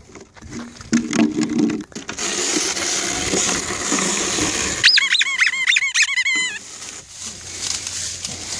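Rubber squeaky dog toy squeezed by hand, giving a quick run of high squeaks for about a second and a half just past the middle.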